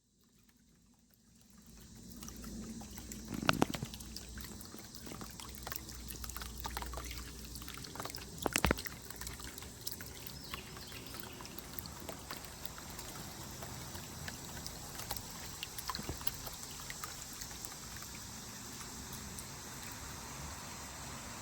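Water from a small solar fountain pump splashing and trickling steadily, fading in over the first two seconds, with two sharp knocks a few seconds apart.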